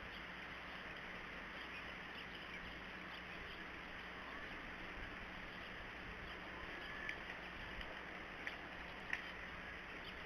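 Red-bellied woodpecker giving three short, sharp calls near the end, over a steady outdoor hiss.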